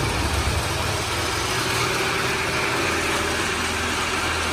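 A machine running steadily: a constant low hum with a hiss over it.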